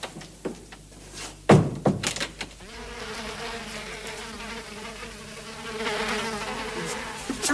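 Housefly buzzing, a wavering drone that sets in about two and a half seconds in and grows louder. It follows a single loud thump about a second and a half in.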